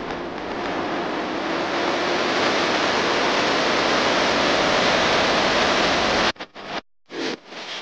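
Steady rushing noise that builds slowly, then cuts off abruptly about six seconds in, followed by short choppy bursts of sound.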